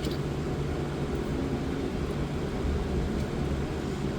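Steady low mechanical hum with a background hiss, unchanging throughout.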